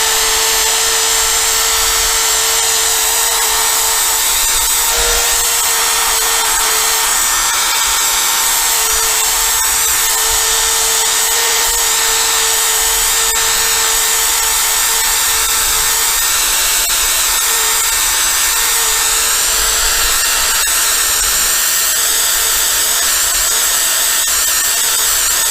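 Power drill spinning a sanding disc against a plastic motorcycle windscreen, running steadily without a break, with a steady whine over a high hiss. The disc is sanding the hazy screen, leaving finer scratches to be polished out.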